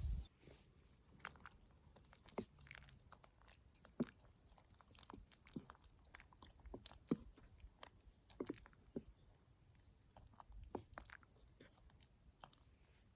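Quiet chewing and crunching of food, with scattered small irregular clicks.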